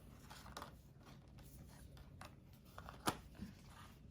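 Tarot cards being handled and moved about on a table: faint rustling and light taps, with one sharper click about three seconds in.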